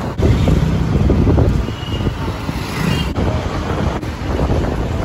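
Wind buffeting the microphone over the steady rumble of a vehicle riding along a busy city street, with road traffic around it.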